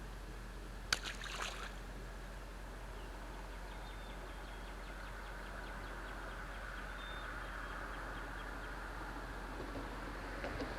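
A sharp click about a second in, then steady outdoor rushing noise by a river that swells slowly in the second half, with faint high chirps.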